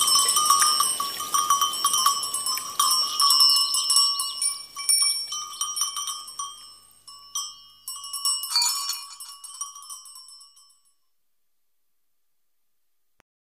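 Livestock bells, like those on a grazing flock, clanking and jangling irregularly with many overlapping ringing strikes. They thin out and die away about three-quarters of the way through.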